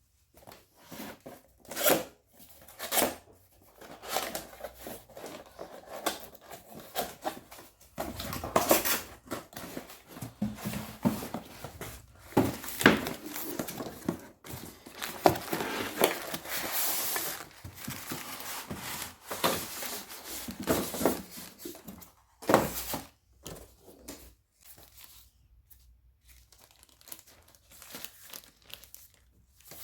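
Product packaging being opened and unwrapped by hand: irregular tearing and crinkling of wrapping, with sharp handling noises, quieter in the last few seconds.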